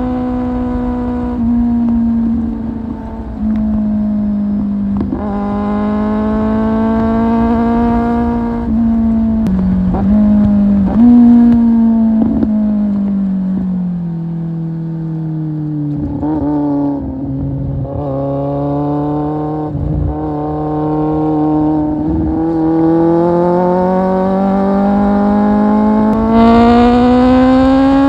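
Kawasaki Z750 inline-four engine through an Akrapovic exhaust, heard on board while riding. Its pitch climbs with short breaks in the first half, drops as the bike eases off in the middle, then rises steadily again toward the end, with wind noise underneath.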